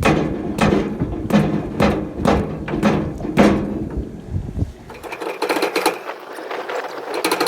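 Repeated heavy thuds of feet stomping on a wooden floating dock, about seven in four seconds, pushing down on a magnet rope jammed under the dock. They stop after about four and a half seconds, giving way to lighter scraping.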